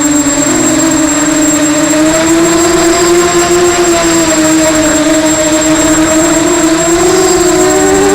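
Electric multirotor FPV drone's motors and propellers buzzing steadily, the pitch drifting gently up and down with throttle and rising a little near the end, over a thin, steady high whine.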